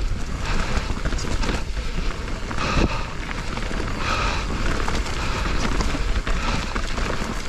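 Mountain bike riding down a dirt trail: tyres rolling over dirt and rocks and the bike clattering over bumps, with a steady low rumble of wind on the microphone.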